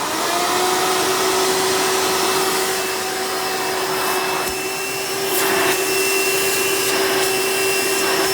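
Hoover Elite upright vacuum with a direct-air fan motor, running in tool mode with the hose attached. It spins up in the first moment after being switched on, then runs with a steady whine and rush of air.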